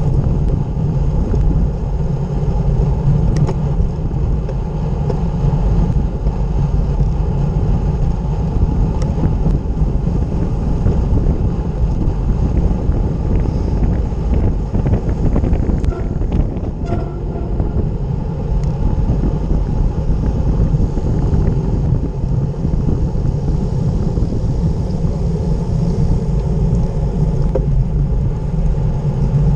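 Steady wind rushing over the microphone of a handlebar-mounted camera, with a road bike's tyres rumbling on a tarmac lane at speed.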